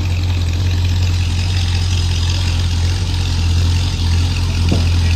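Classic Chevrolet Impala lowrider's engine idling steadily, a deep, even hum with no revving.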